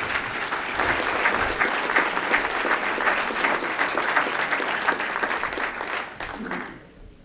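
An audience applauding, a dense patter of hand claps that dies away near the end.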